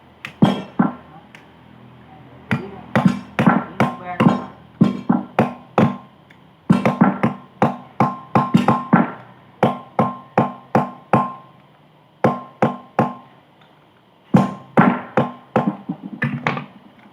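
Repeated hammer blows on metal, about two to three a second in runs with short pauses, each strike ringing.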